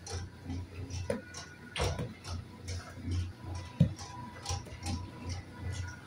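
Mustard oil expeller machinery running with a regular rhythm: a low hum pulsing about two to three times a second under light mechanical ticks, with a sharper knock about two seconds in and again near four seconds.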